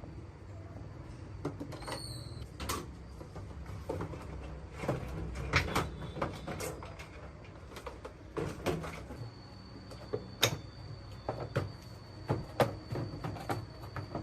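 Irregular knocks, clicks and scrapes of hand work on the metal parts of an old rusty washing machine being taken apart.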